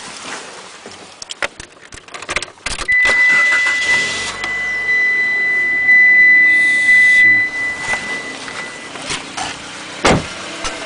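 Mitsubishi Lancer X 1.5-litre engine starting and then running, after a few seconds of clicks from handling under the bonnet. A steady high tone sounds for about six seconds after the start and fades out, and there is a sharp knock near the end.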